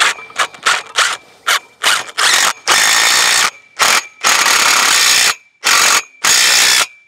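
Cordless impact driver driving a lag bolt through a steel EMT conduit pole into a wooden 4x4 post. It runs in a quick series of short trigger bursts, then in several longer runs of about a second each.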